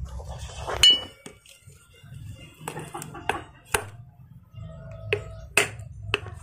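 Sharp metal-on-metal clinks and knocks as a steel gasbul insert is worked into a motorcycle exhaust muffler's outlet: about seven separate strikes, the first ringing briefly, over a low steady hum.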